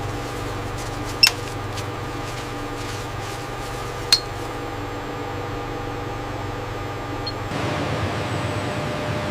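Steady mechanical hum of running machinery with a few held tones, broken by two sharp clinks about a second in and about four seconds in. Near the end the hum turns noisier and a little louder.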